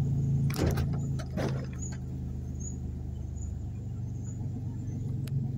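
Car engine and road noise at slow driving speed, heard from inside the cabin as a steady low drone. Two short noises stand out within the first two seconds.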